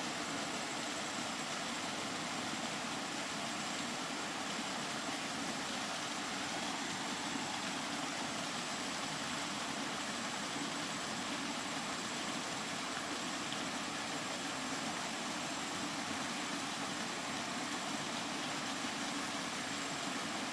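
Steady, unbroken rain noise: an even hiss with no separate drops or gusts standing out.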